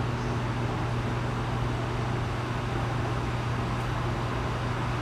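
Steady low hum under a constant hiss of background noise, unchanging throughout.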